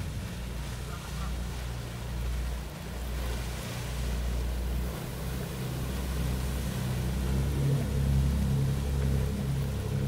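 Fireboat's diesel engines running in a low rumble as it passes close and pulls away, churning a wake, a little louder in the last few seconds; wind buffets the microphone.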